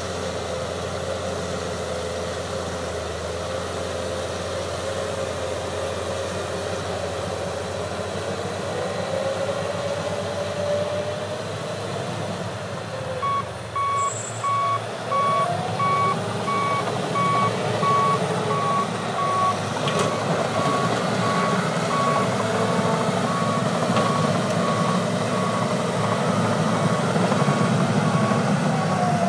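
John Deere 700H bulldozer's diesel engine working under load, its pitch wavering. About halfway through, its backup alarm starts beeping steadily, about two beeps a second, as the dozer reverses.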